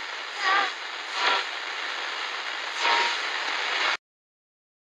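Harsh static-like hiss with three louder surges, the first carrying a wavering, screech-like pitch. It cuts off abruptly about four seconds in, leaving dead silence.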